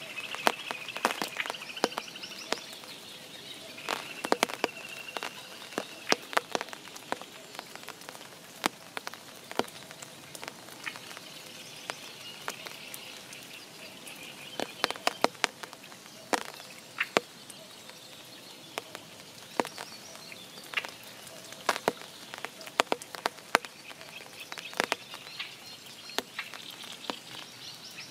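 Spring rain over a forest pond: a soft steady patter with many individual drops landing as sharp, irregular taps. A high trilling call comes in several times over the rain.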